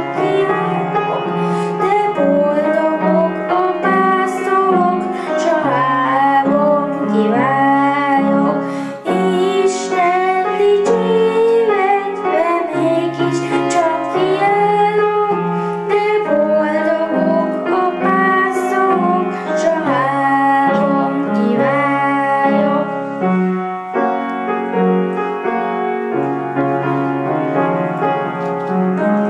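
Children singing a song into microphones over a piano accompaniment.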